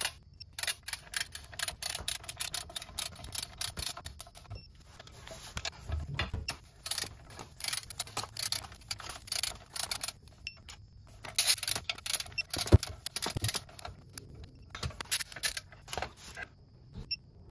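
Ratcheting torque wrench tightening the clutch pressure plate bolts: irregular runs of sharp metal clicks and clinks.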